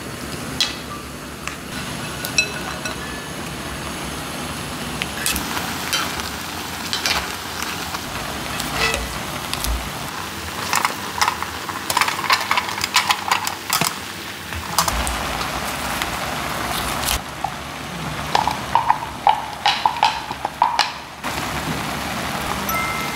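Cooking in a cast-iron skillet on a portable gas burner: water simmering with a steady hiss, broken by clatter and crackling as vegetables are tipped into the pan and seasoning is spooned on, busiest in the middle and near the end.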